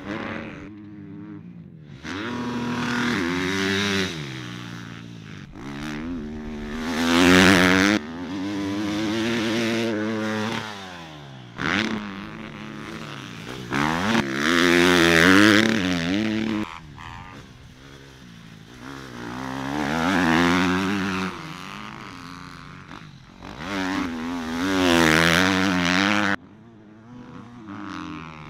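Motocross dirt bike engines revving hard through the gears, pitch climbing and falling again and again over several loud passes, with abrupt changes in sound where the shots cut.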